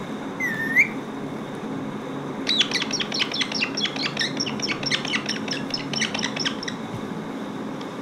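Rose-ringed parakeet giving one short rising whistle, then a fast run of sharp chirps that lasts about four seconds and stops well before the end.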